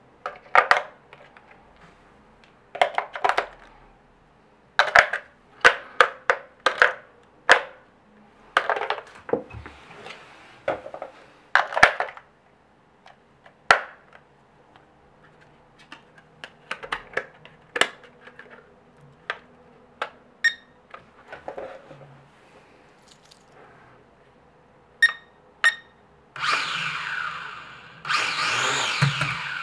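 Syma X5C quadcopter's small brushed motors and propellers whirring in two short spin-ups near the end, the pitch gliding up and down. Before that come scattered sharp plastic clicks and taps, and a couple of short beeps.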